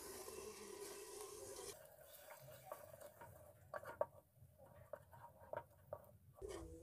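Faint stirring of tomato puree into spiced onion masala in a metal pan: a soft sizzle for the first couple of seconds, then a spatula scraping, with scattered light taps against the pan.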